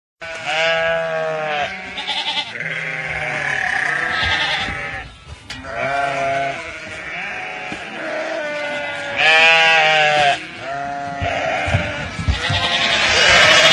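A large flock of sheep bleating, with many calls overlapping and following one another every second or two; the loudest comes about nine seconds in. A rushing noise builds near the end.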